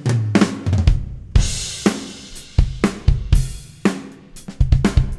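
Recorded acoustic drum kit playing a groove. The kick drum is layered with a sampled 22-inch Yamaha Beech kick from Superior Drummer 3, triggered from the real kick so the two hit together. Kick, snare and hi-hat hits run steadily, and a cymbal crash rings out about a second and a half in.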